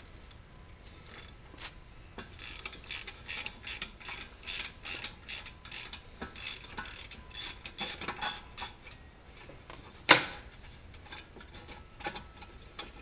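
Ratcheting screwdriver clicking as it turns a bolt on the intake of an old lawn-mower engine: a run of sharp ratchet clicks, about three a second, for most of the time. About ten seconds in there is one louder sharp knock.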